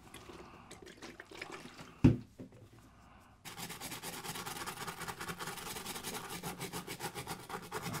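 A nylon brush wet with isopropyl alcohol scrubbing a circuit board in rapid back-and-forth strokes, cleaning off flux residue. The scrubbing starts about three and a half seconds in, after a single sharp thump about two seconds in.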